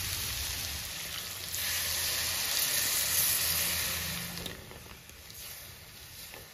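Pork belly sizzling in a hot wok; about a second and a half in, water poured into the hot pan sets off a loud hiss that lasts about three seconds, then the sound drops to a quieter simmer.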